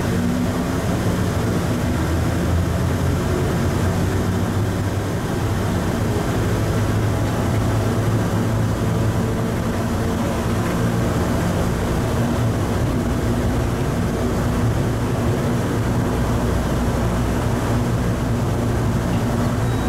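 Atlanta airport's Plane Train, a rubber-tyred automated people mover, running steadily at speed through its tunnel, heard from inside the car: a constant running rumble with a low motor hum.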